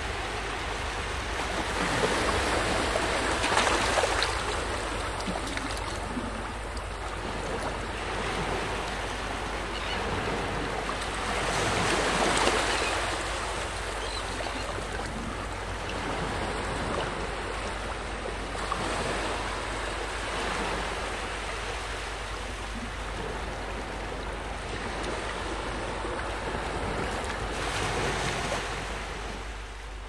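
Ocean surf washing onto a sandy beach, a steady rush of water that swells and fades every several seconds as waves break and run up the shore.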